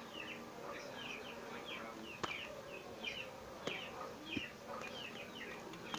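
A series of short, high chirps, each falling in pitch, repeating at about two a second from a small animal. A few sharp clicks from the cardboard parcel being handled and cut open.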